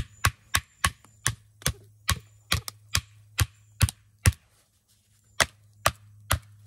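A wooden baton strikes the spine of a Reiff Knives Circadian fixed-blade knife in quick sharp knocks, about three a second, driving the blade down through a knotty split of wood. After about four seconds the strikes stop for about a second, then three more follow.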